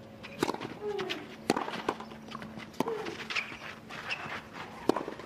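Tennis rally on a clay court: four sharp racket-on-ball strikes, one to two seconds apart, with two short grunts from the players between them.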